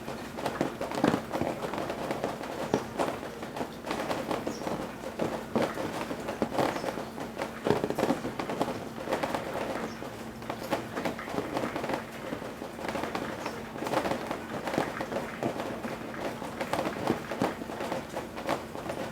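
Rain dripping and splattering off roof eaves in a dense, irregular patter of drops, as the rain slowly lets up.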